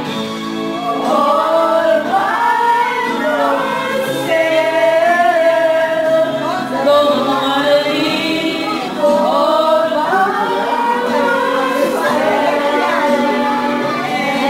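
A woman singing karaoke into a handheld microphone over a backing track, holding long notes that waver in pitch.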